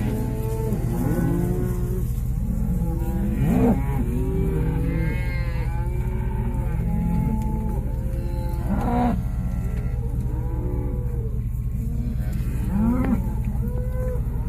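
A herd of cattle mooing and bawling, many calls overlapping and following one another without a break. A steady low hum runs underneath.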